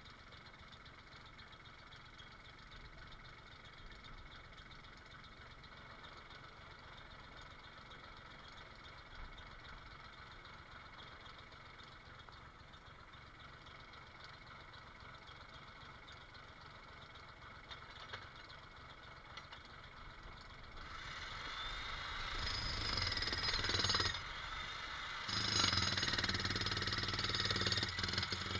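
A faint steady engine rumble, then, about two-thirds of the way through, a jackhammer starts hammering in two loud bursts of a few seconds each with a short break between.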